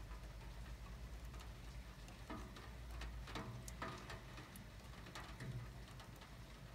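Light rain: scattered raindrops ticking irregularly as they fall, over a steady low rumble.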